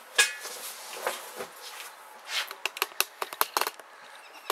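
Irregular clicks and knocks of the camera being handled and carried: a loud knock just after the start, then a quick run of sharp clicks in the second half.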